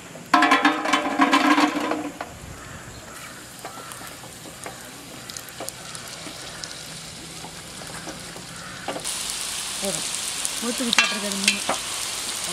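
Puris frying in hot oil: a steady sizzle that grows denser and louder about 9 seconds in, with scattered crackles. A brief, loud pitched cry sounds near the start.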